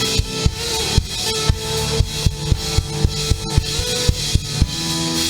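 Church worship band playing: a drum kit keeps a steady beat of about two hits a second under held chords.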